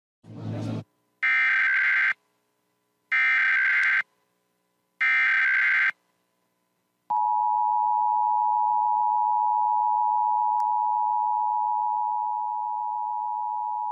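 Emergency Alert System SAME header: three equal bursts of shrill, rapidly warbling data tones, about a second each and a second apart. About a second later comes the steady two-tone EAS attention signal, which holds to the end and announces that an alert message follows.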